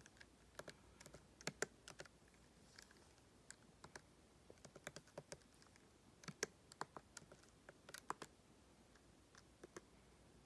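Fingers typing on a MacBook's keyboard: faint, irregular key clicks in short runs with pauses between them.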